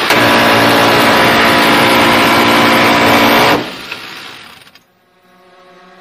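M134 Minigun, a six-barrel 7.62×51 mm Gatling gun, firing one continuous burst of about three and a half seconds. The shots come too fast to separate and blend into one loud buzz. The burst stops abruptly and the sound tails off over about a second.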